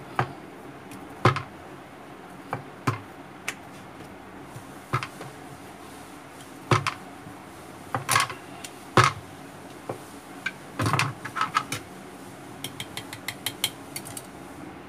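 Wooden rolling pin knocking and clacking against a rolling board as small discs of stiff mathri dough are rolled out. The knocks are irregular and sharp, with a quick run of light taps near the end.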